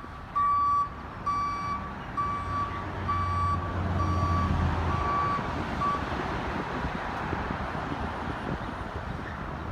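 Garbage truck's newly fixed backup alarm beeping on one steady pitch, about seven beeps a little under a second apart, stopping about six seconds in. The truck's engine runs underneath, getting louder in the middle and running on after the beeping ends.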